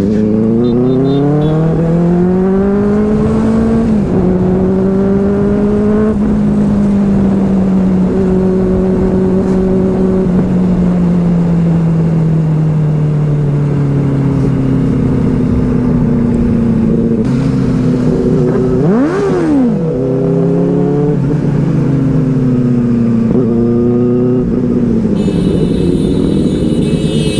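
Benelli 600i's inline-four engine under way: it accelerates with the pitch climbing for about four seconds, drops at a gear change, then runs with the pitch slowly falling, with a quick rev that rises and falls about two-thirds of the way through.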